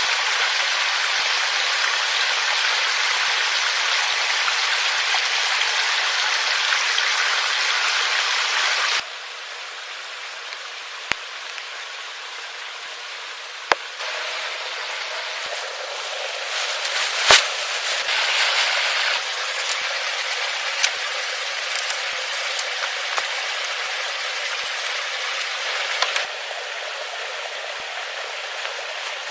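Steady rain falling in a forest, with scattered light clicks and knocks from sticks being handled and one sharp snap a little past the middle. The rain hiss drops abruptly about nine seconds in and changes level again twice where the footage is cut.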